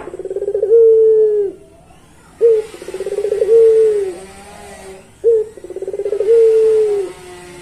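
Puter pelung, a Barbary (ringneck) dove kept for its long coo, cooing three times about every two and a half seconds. Each coo is a short opening note, a rapid rolling stutter, then a long held note that sags at the end.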